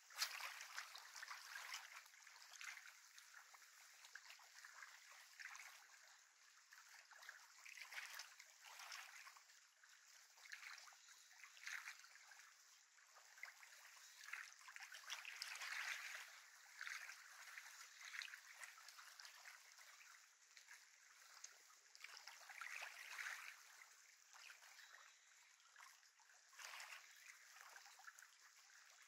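Faint lapping of small lake waves on the shore, coming in irregular swells.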